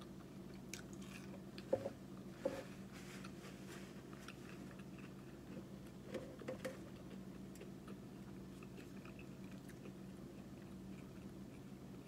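Close-miked chewing and biting of fast food (an onion ring, then a Whopper), with scattered small mouth clicks and a few sharper crunches near 2 seconds and about 6 seconds in, over a steady low hum.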